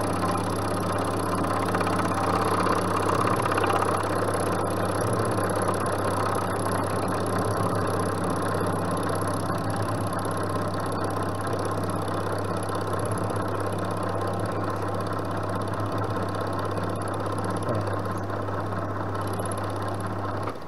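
Milling machine running with an end mill cutting into the curved face of a round workpiece as it is wound round a quarter turn: a steady motor hum under the grinding of the cut, a little louder between about two and four seconds in.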